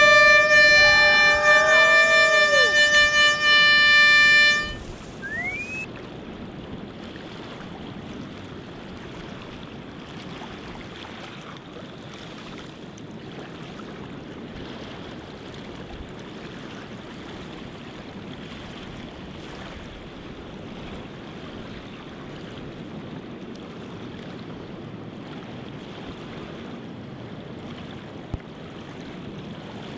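A long horn blast, one steady held note, sounds and cuts off about five seconds in. After it comes the steady rush of water from a moving boat's wake.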